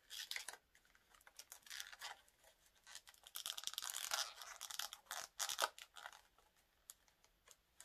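Liquid lipstick packaging being opened and handled: scratchy rustling with many small clicks, busiest in the middle.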